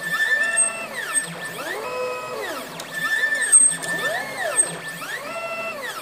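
Three Z-axis stepper motors of an Ultimaker 3D printer's tribed bed, whining as they drive the bed back and forth at high speed. With each move the musical tone rises in pitch, holds, then falls, about once every second or so: the motors slowly ramp up and down under low acceleration.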